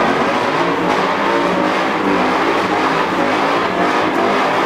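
Car engine held at high revs during a burnout, running loud and steady with the rear tyres spinning in smoke.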